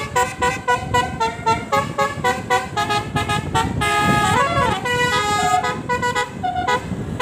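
Basuri V3 telolet horn on a tour bus playing a fast tune of short stepped notes, with a sliding swoop of pitch about four seconds in, then a few longer held notes. A low rumble runs underneath.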